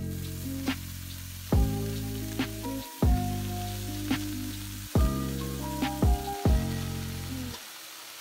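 Kale sizzling as handfuls are dropped into hot oil and sliced garlic in a stainless steel pan, over louder background music.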